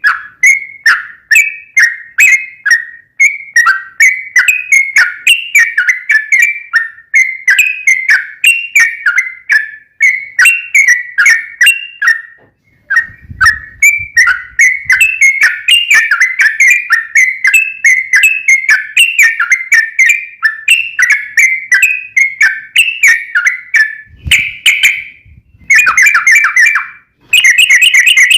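Yellow-vented bulbul (trucukan) singing a long, fast run of short, bubbly chattering notes with only brief pauses, turning into a quicker, denser trill near the end. It is the long "ropel" song used to provoke other trucukan into answering.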